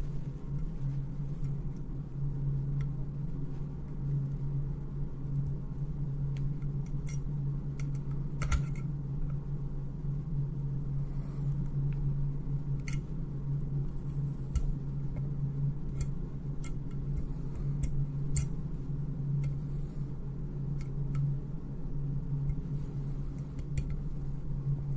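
Scattered light clicks and brief scrapes of small metal screws and parts being handled and tightened on a rifle optic mount, over a steady low hum.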